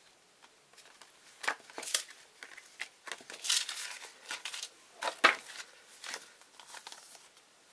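Paper decal sheets and an instruction sheet rustling and crinkling as they are shuffled and turned over by hand, in irregular bursts with a few sharper crackles, the sharpest about five seconds in.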